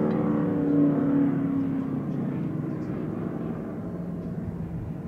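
Classic muscle car's engine running hard at speed, its note fading as the car goes away, leaving a fainter engine drone.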